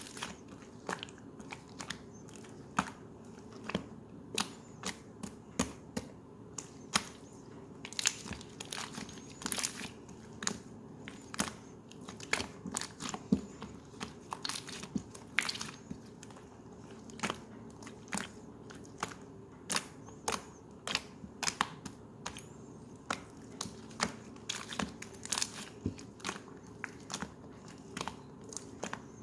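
Slime being squeezed and pressed by hand, giving irregular sharp clicks and pops, a few each second.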